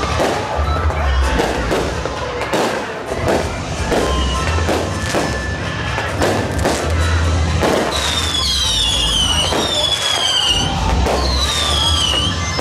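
Aerial fireworks bursting in a rapid series of bangs. In the last few seconds there are several high whistles, each falling in pitch over about a second.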